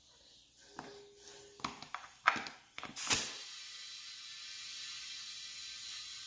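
A few clicks and knocks as the air chuck is worked onto the tire valve, then a steady hiss of compressed air filling the ATC250R's front tire from about three seconds in, pushed past operating pressure to be sure the bead is sealed all the way around.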